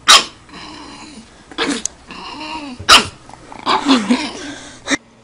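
A pug puppy barks sharply several times, with low growls between the barks, at its own reflection in a mirror.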